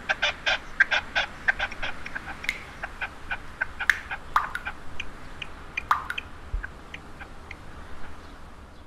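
A flock of birds calling, short calls in quick succession at first, then fewer and fainter as they fade away.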